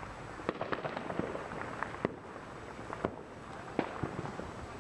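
Fireworks and firecrackers going off: an irregular run of many small pops and bangs, with a few sharper bangs about two, three and nearly four seconds in.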